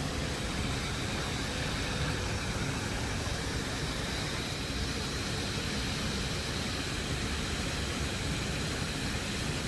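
Garden waterfall: a steady rush of falling water.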